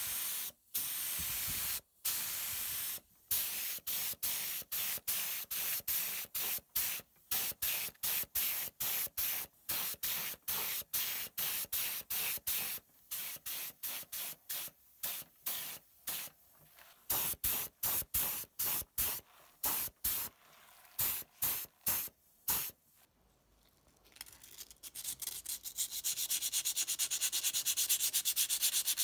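LVLP gravity-feed paint spray gun hissing in short trigger-pull bursts, about one to two a second, then a brief lull. Near the end, sandpaper rubs rapidly and steadily by hand over a small metal plate.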